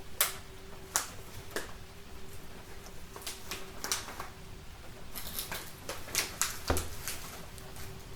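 Wood fire in a fireplace crackling, with irregular sharp pops spaced unevenly and a cluster of them about five to seven seconds in, over the steady hiss of falling rain.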